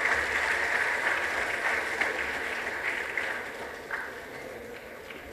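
Audience applauding, the clapping fading away over a few seconds.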